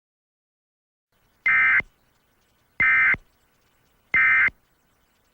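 Three short bursts of EAS digital data tones, the SAME end-of-message code that closes an emergency alert broadcast: each burst is a rapid two-tone warble about a third of a second long, a little over a second apart.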